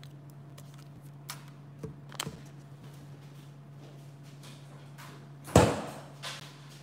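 Plastic soda bottles set down on a countertop, giving a few light knocks, then one louder thump about five and a half seconds in, over a steady low hum.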